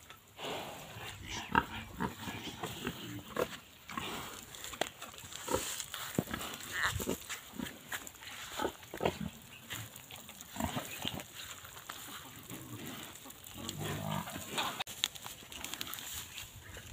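Domestic pig grunting in short, irregular grunts.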